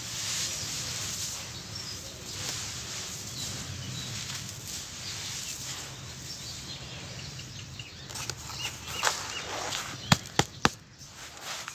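Clumps of dry, dusty grey dirt falling and crumbling onto a dirt pile, a steady sandy hiss full of faint patters. From about eight seconds in it turns into separate crunches, with a few sharp, loud clicks around ten seconds as a bowl is pressed into the dirt.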